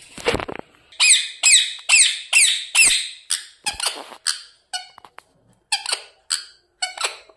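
A pet parrot screeching in a run of sharp, high calls, about two a second, each falling in pitch. These give way to shorter, quicker squawks. Its owner reads the screeching as anger. A short rough rustle comes right at the start.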